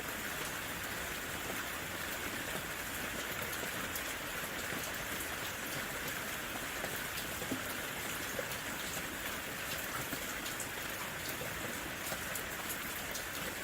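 Steady rainfall: an even hiss of rain with many individual drops ticking sharply close by.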